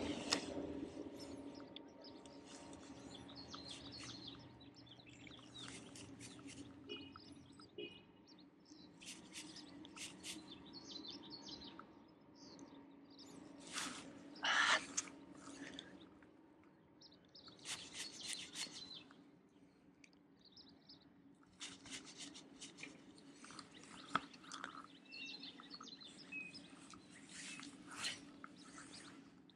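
Birds chirping and calling in scattered short phrases, one call louder than the rest about halfway through, over a faint steady low hum.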